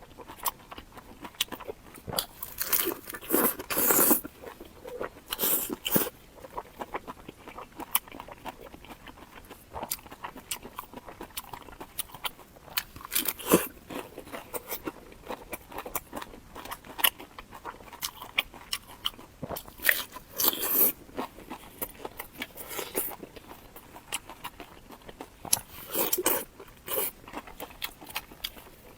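Close-miked chewing of crunchy food: irregular crisp bites and crunches with wet mouth clicks between them, the loudest crunch bursts coming every few seconds.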